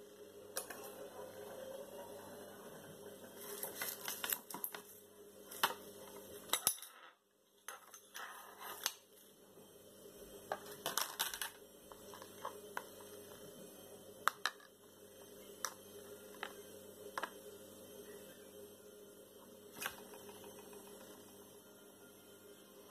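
A metal utensil clinking and scraping against a ceramic bowl while stirring garlic butter with parsley: scattered sharp clicks in small clusters with pauses between, over a steady low hum.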